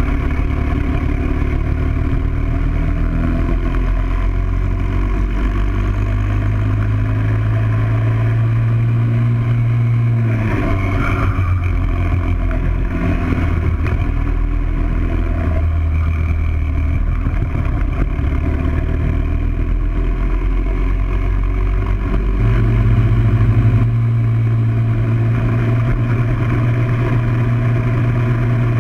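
Single-cylinder four-stroke Briggs & Stratton World Formula kart engine running hard, heard onboard. Its pitch rises and falls with the throttle through the corners and straights.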